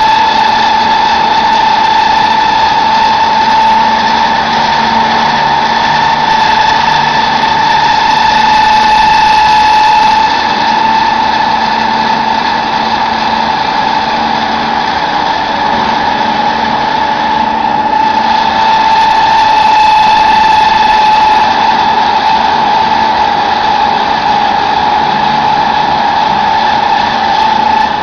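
Chicken-feed pellet press machine running steadily, with a loud high whine and mechanical noise under it.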